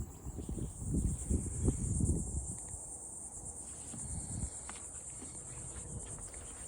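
Steady high-pitched chorus of insects, crickets or similar, buzzing without a break. Under it an uneven low rumble comes and goes, heaviest in the first couple of seconds.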